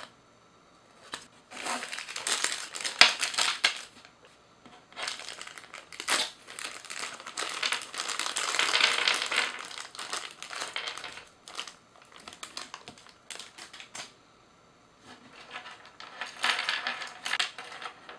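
Crinkling of a clear plastic bag being handled and shaken as small plastic toy parts are tipped out of it. It comes in several bursts with short quiet pauses, with light ticks of the parts between them.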